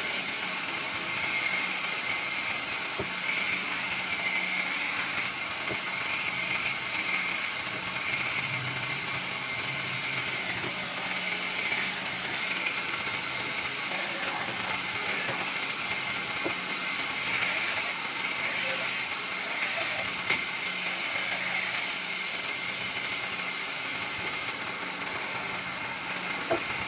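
Steady hissing noise with a faint low hum underneath, and one short click about twenty seconds in.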